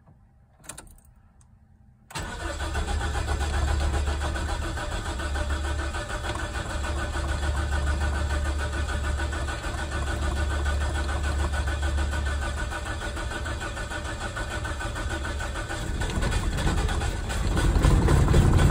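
A 1991 Mazda B2200 pickup's 2.2-litre four-cylinder engine starts suddenly after a couple of light clicks and settles into a steady idle. Near the end it grows louder, with a heavier low rumble.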